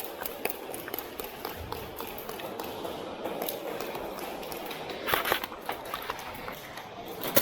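Scattered sharp snaps of airsoft guns firing, with a quick cluster about five seconds in and another at the end, over the rustle and footfalls of a player on the move.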